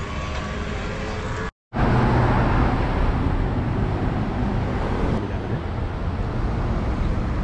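Steady city road traffic, cars running past along a busy street, heard while walking the sidewalk. A brief cut to silence about one and a half seconds in, after which the traffic is louder.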